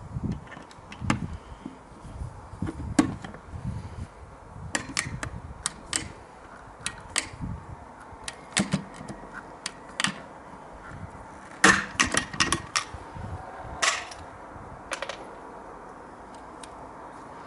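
Hand pop-rivet gun pulling 4.8 mm blind rivets into an aluminium window frame: a run of sharp metallic clicks and snaps as the tool is squeezed, loudest at about 12 and 14 seconds in.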